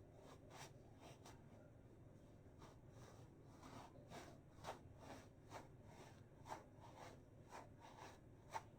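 Faint soft crinkling squishes of a foam banana squishy toy being squeezed and rubbed by hand, short strokes about two a second, over a low steady hum.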